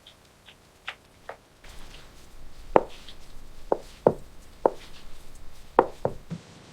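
Amala being stirred in a pot: a stirring utensil scrapes through the thick yam-flour dough and knocks against the pot about seven times at an uneven pace, with a few lighter clicks before the stirring starts.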